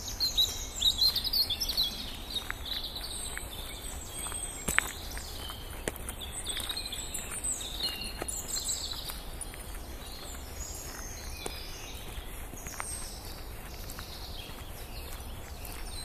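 Woodland birdsong, several birds chirping and trilling, busiest in the first couple of seconds, over a steady outdoor hiss. Scattered crunching footsteps on a gravel path.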